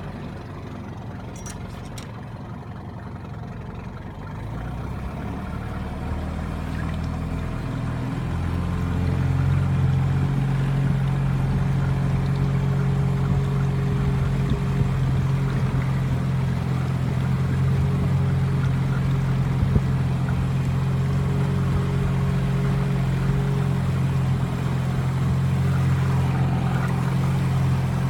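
A small boat's outboard motor running. Its tone and loudness rise over the first several seconds as it speeds up, then hold steady.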